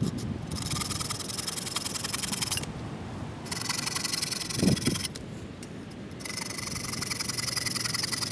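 Hand sawing through a fallen ash branch with an EKA 21-inch combi bow saw: three spells of rasping strokes with short pauses between them.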